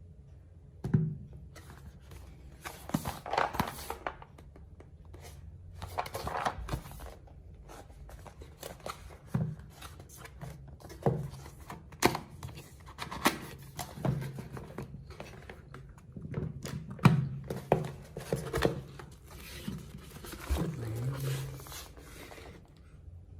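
Keyboard packaging being unboxed by hand: cardboard and plastic rustling and tearing, with irregular knocks and thunks as the box and its contents are handled.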